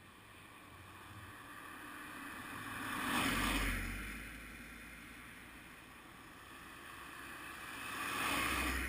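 Two vehicles passing by, each a rush of tyre and engine noise with a low rumble that swells up and fades away: one about three seconds in, the second near the end.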